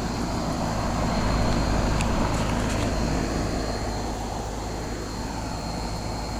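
1996 Janitrol central air-conditioner condensing unit running: the compressor and condenser fan give a steady hum and whoosh with a thin high whine.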